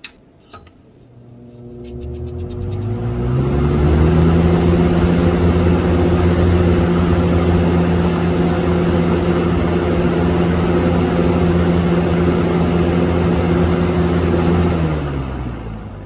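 1987 Dayton 4C510A 20-inch box fan, built by Lakewood, switched on: its motor and blades spin up over about three seconds with a rising hum, then run steadily with a loud whir. Near the end it is switched off, and the hum sinks in pitch as the blades wind down.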